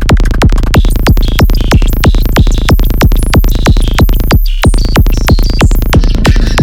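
Electronic dance music: a fast, steady drum-machine beat over a heavy bass, with synth notes stepping up and down above it. The beat drops out briefly about four seconds in, then comes back.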